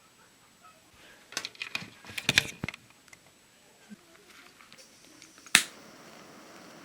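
Small clicks and crinkles of packaging being handled, most likely a cookie being taken out, in a quick cluster about a second and a half in. Near the end comes one sharp click, followed by a steady faint hiss.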